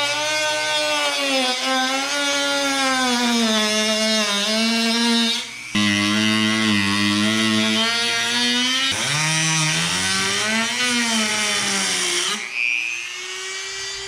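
Dremel rotary tool with a cutoff wheel cutting through a C7 Corvette's composite quarter panel. Its high whine rises and falls in pitch as the load on the wheel changes. There is a brief break about five and a half seconds in, and it eases off near the end.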